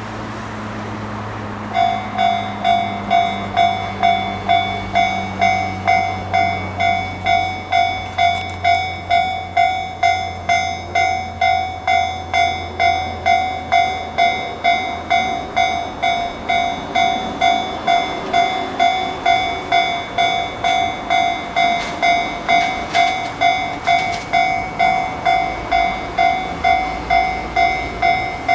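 Japanese railway level-crossing electronic warning bell of the Tobu "sound C" (Tojo Line) type, starting about two seconds in. It rings a repeated metallic ding about twice a second, signalling that a train is approaching.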